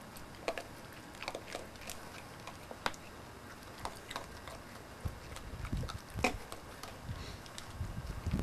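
A buck deer and a raccoon eating scattered grain, heard as irregular crunching and clicking of bites and nibbles. A low rumble builds in the last few seconds.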